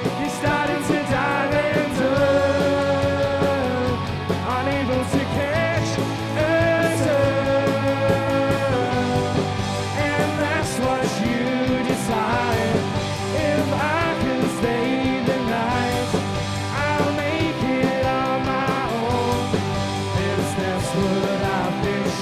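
Indie pop-rock band playing: electric guitars over bass and drums, with long held melodic notes that bend in pitch and steady sharp hits from the kit.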